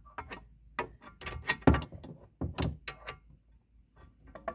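Irregular sharp metallic knocks and clicks of a socket ratchet and tools against the wheel hub while its bolts are being fitted, about a dozen strikes with the loudest one a little under two seconds in.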